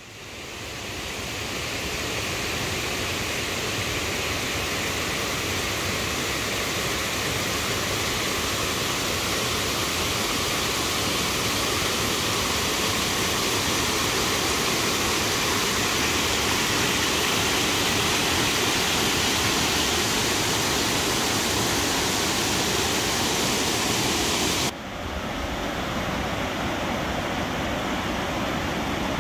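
Steady rush of river water pouring over a weir. It fades in at the start and changes abruptly about 25 seconds in, becoming less hissy.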